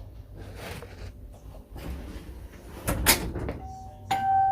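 Rustling and a sharp knock about three seconds in. Near the end, a wired mechanical doorbell chime, set off by the video doorbell's button, strikes its first, higher 'bing' note, which rings on steadily.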